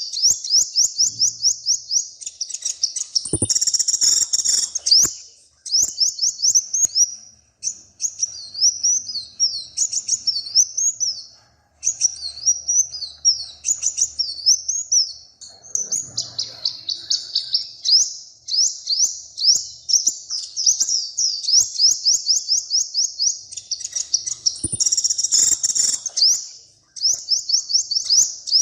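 A small songbird singing long phrases of rapid, high, repeated sweeping notes, several a second, broken by brief pauses. A few sharp clicks come in between.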